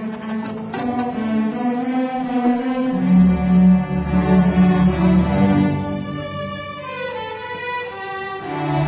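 A student string orchestra playing, with violins and cellos bowing long held notes; the low string notes grow stronger about three seconds in.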